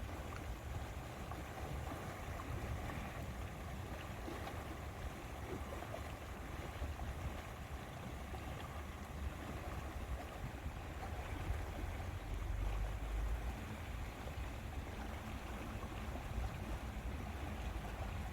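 Wind rumbling on the microphone over a steady wash of lapping lake water; the wind gusts stronger about two-thirds of the way in.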